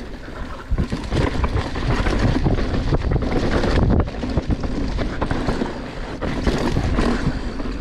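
Wind buffeting the microphone of a mountain bike running down a bike-park trail, with steady rumble and frequent knocks and rattles from the bike over rough ground.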